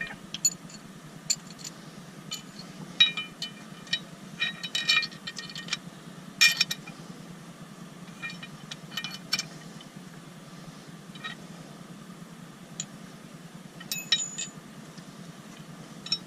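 Small metal hardware clinking and tapping: screws and metal grab-handle mounting pieces handled and knocked together during fitting, in irregular sharp clicks with a bright ring, over a steady low hum.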